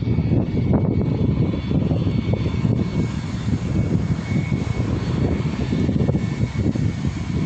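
Jet airliner engines running at idle: a steady low rumble with a faint high whine over it.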